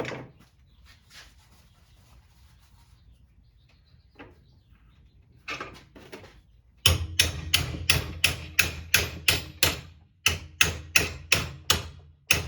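Hammer blows on an aluminium bracket being bent to shape, a fast even run of about three sharp strikes a second that starts about seven seconds in, after some quieter handling clicks.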